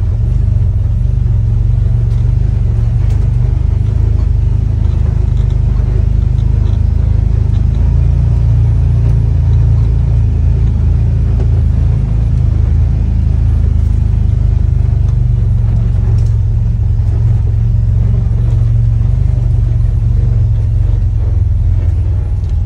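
Side-by-side utility vehicle driving along a dirt trail, heard from inside the cab: its engine and drivetrain make a loud, steady low rumble.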